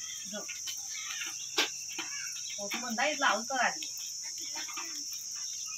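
Steady high-pitched insect chirring. A short sharp click comes about one and a half seconds in, and a person's voice a little after halfway.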